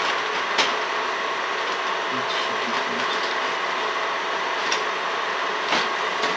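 Crystal QUAD 3D printer running a print job, its motors whirring steadily with several steady tones, with a few sharp clicks.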